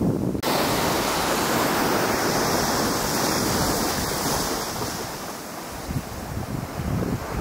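Wind blowing across the microphone on an icy lakeshore: a steady, even rushing noise that jumps suddenly louder and brighter about half a second in, after a moment of low gusty buffeting.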